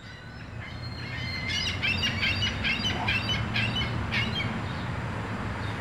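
Birds chirping, many short calls in quick succession for a few seconds, over a low steady rumble.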